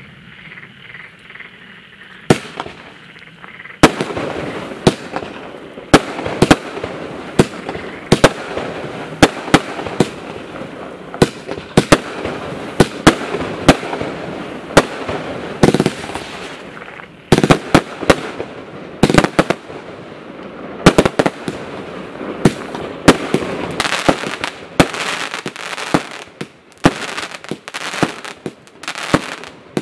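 Total FX 'Caged Tiger Unleashed' firework barrage cake firing. A first sharp bang comes about two seconds in, then a fast string of shots and bursting shells every half second to a second, over a continuous hiss.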